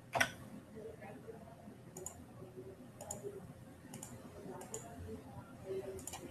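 About six sharp clicks at a computer, roughly a second apart, the first the loudest, over faint room noise.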